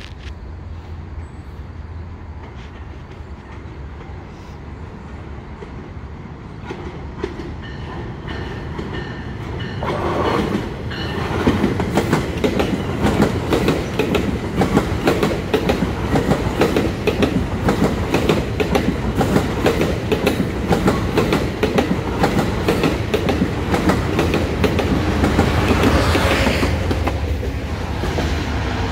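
EXO commuter train of bilevel passenger coaches passing close by, its wheels clicking over the rail joints in a steady clickety-clack. It builds up from a faint approach and turns loud about ten seconds in, staying loud to the end.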